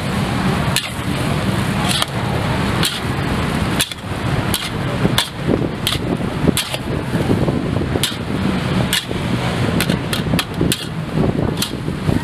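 Metal spatula clanking against a wok in quick, irregular knocks, about one or two a second, over a steady rushing noise.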